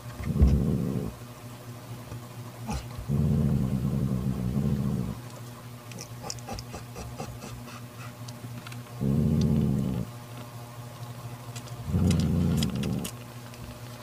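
Mother cat growling in low, drawn-out rumbles, four of them, each one to two seconds long with pauses between: a protective mother cat warning off another cat from her newborn kitten.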